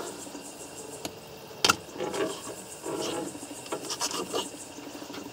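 Knife slicing a fillet off an Australian bass on a plastic cutting board: short rubbing scrapes of the blade through the flesh, with one sharp knock about a third of the way in.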